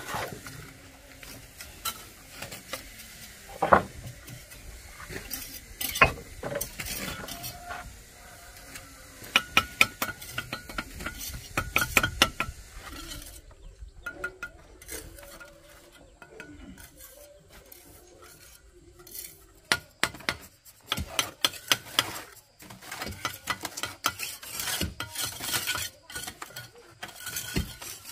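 Metal hand tool scraping and clinking against a hard surface, with irregular bursts of quick taps.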